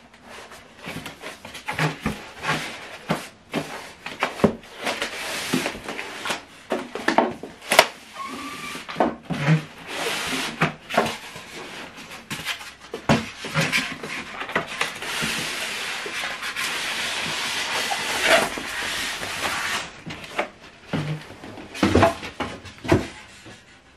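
Packaging being handled: cardboard box flaps and polystyrene foam packing blocks knocked, shifted and slid against each other, giving many sharp knocks and thuds with longer stretches of rubbing and scraping.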